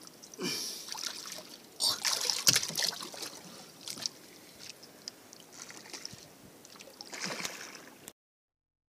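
Water splashing and dripping around a small boat, with irregular knocks and rattles on the hull. The loudest splashes come about two seconds in, and the sound cuts off abruptly near the end.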